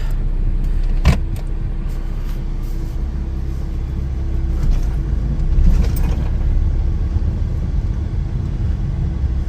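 Smart car driving on a brake test run after a rear brake wheel cylinder replacement: steady low engine and road rumble, with a sharp click about a second in.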